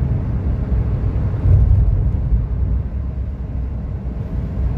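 Road and engine noise inside a moving car's cabin: a steady low rumble, swelling briefly about a second and a half in.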